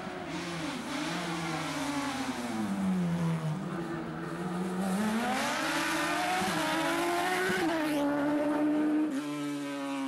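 Open-cockpit sports prototype race car's engine working through a slalom chicane: the pitch falls to a low point about three seconds in, then climbs steadily as it accelerates, with two sudden drops in pitch near the end.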